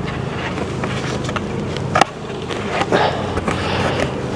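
Honey bees buzzing in a steady hum around an open hive, with a single sharp knock about two seconds in.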